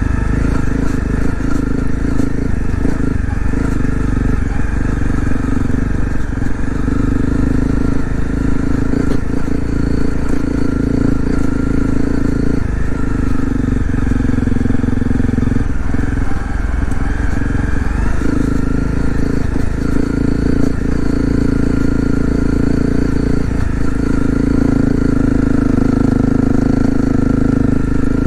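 Honda CRF250L's single-cylinder engine running steadily while the motorcycle is ridden, its note swelling and easing with the throttle, with a few brief knocks.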